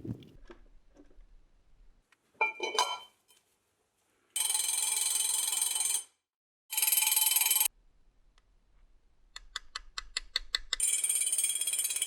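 A knock, then a power tool running in two bursts of a second or so, then a quick run of ratcheting clicks, and the tool running steadily again near the end.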